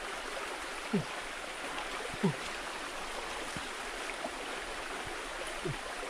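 Forest stream running with a steady rush, broken by a few short, low gurgles that drop in pitch, about one and two seconds in and again near the end.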